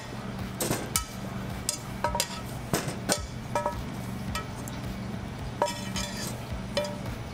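Pieces of ginger dropping into a perforated stainless-steel stock basket as metal tongs tip them from a pan. About a dozen sharp clinks and knocks, each with a short metallic ring, over a steady low hum.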